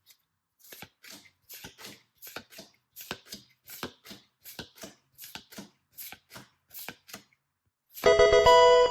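Pokémon trading cards being handled one after another in quick, even strokes, about two or three a second, as a stack is flipped or shuffled through. Near the end a loud, bright musical chord comes in and holds.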